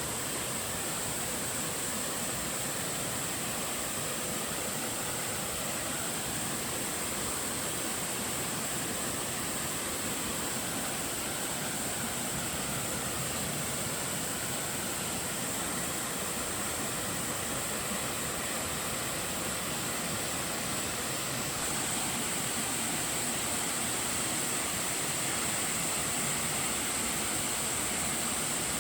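Mountain waterfall in a rocky stream valley: water falling and rushing in a steady, even roar that gets a little louder about twenty seconds in.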